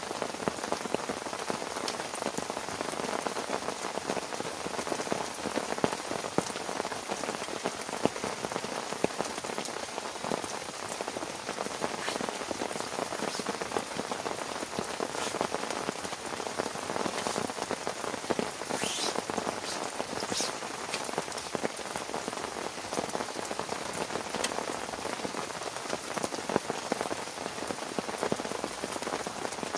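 Heavy rain falling steadily, with many close drops striking a surface. Two brief higher-pitched sounds come about two-thirds of the way through.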